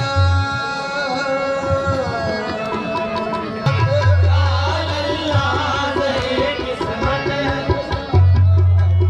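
South Asian-style music: tabla drumming under a held melodic line, with deep bass notes that come in about four seconds in and again near the end.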